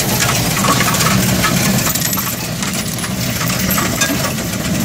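Loose coins clinking and clattering as they are scooped up, slid across a counter and fed into a coin-counting machine, its motor humming steadily underneath as it counts.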